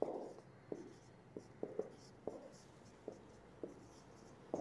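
Marker pen writing on a whiteboard: a faint, irregular series of short strokes and taps as symbols are written.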